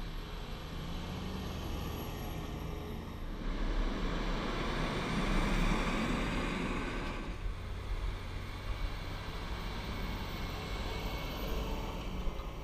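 Large farm tractor's diesel engine running steadily under load while it pulls a land leveller through loose soil. Midway there is a louder rushing swell lasting a few seconds as the tractor works close by.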